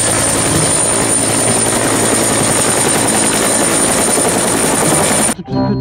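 Helicopter sound effect: loud, steady rotor and engine noise that cuts off abruptly near the end.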